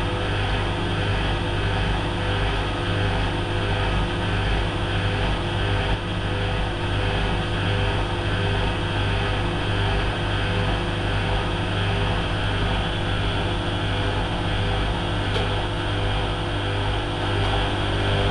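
Hotpoint Aquarius WMF70P washing machine running with a steady motor hum and drum noise, holding an even speed.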